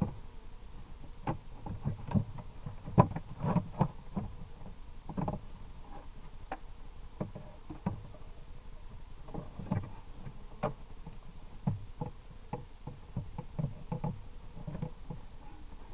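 Irregular wooden knocks, clunks and clicks of beehive frames and boxes being handled and shifted, some close together in quick runs.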